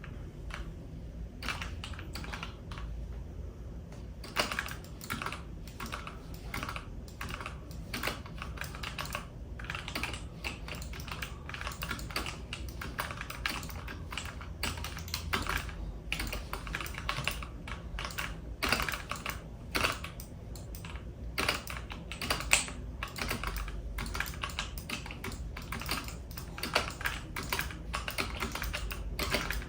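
Computer keyboard keys clacking in quick, irregular runs: a few scattered presses for the first few seconds, then dense flurries of keystrokes, over a low steady hum.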